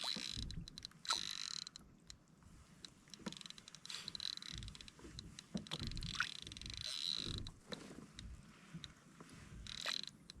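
Shimano Ocean Jigger overhead reel being cranked against a hooked fish, with irregular mechanical clicking and creaking from the reel and rod.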